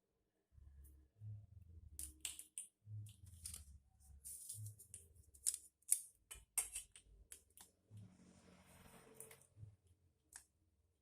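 Kitchen handling sounds: a run of sharp clicks, snips and rustles, with a brief rushing noise about eight seconds in.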